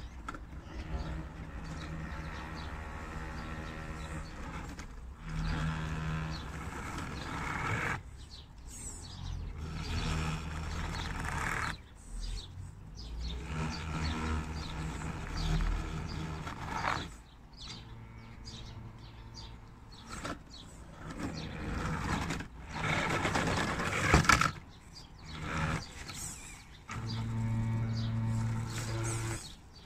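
Electric motor and gear train of a radio-controlled Land Rover Defender scale crawler whining in repeated bursts of throttle as it crawls under load over grass and dirt. It stops and starts every few seconds, and the pitch shifts from burst to burst.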